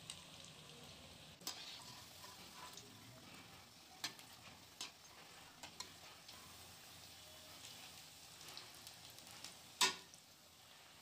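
Potato pakoras deep-frying in hot oil in a kadhai, a faint steady sizzle as they cook toward golden brown. A few sharp clicks of a metal slotted spoon against the pan come through it, the loudest near the end.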